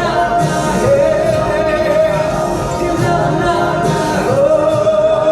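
Live singing over backing music, the singer holding long notes about a second in and again near the end.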